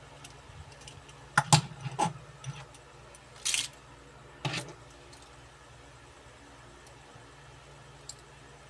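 Diecast metal toy cars clicking and clattering against a hard surface and each other as they are handled, set down and picked up: a few sharp clicks about one and a half seconds in, a brighter metallic rattle around three and a half seconds, and another click a second later.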